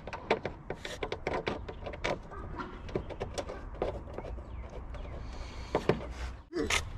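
Irregular clicks and knocks of tools and parts being handled, over a low steady rumble.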